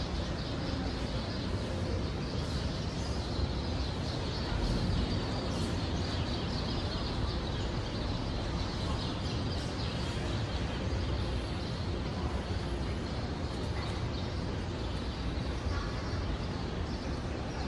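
Steady outdoor background noise: an even hiss with a low rumble underneath, holding level throughout.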